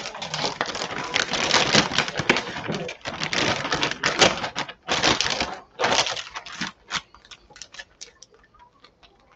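Plastic zip-lock freezer bags crinkling and rustling as they are handled, with rapid clicking from the zipper seals being pressed shut. About seven seconds in the rustling dies down, leaving a few light clicks.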